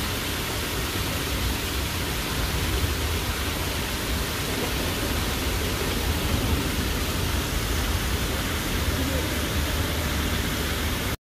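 Water cascading down a stone-wall fountain, an even, continuous rushing splash.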